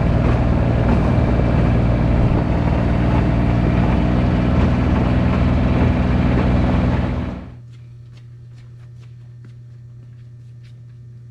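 A vehicle engine running steadily, then shutting off abruptly about seven seconds in. A quieter steady low hum with a few faint clicks remains.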